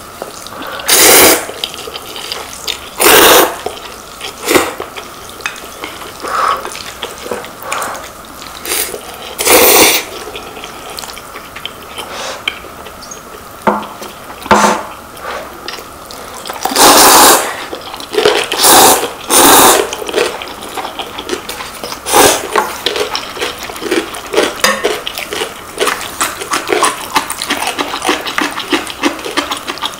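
Instant ramen noodles being slurped, about seven loud sucking slurps, with chewing and small wet mouth clicks between them that come quick and steady over the last few seconds.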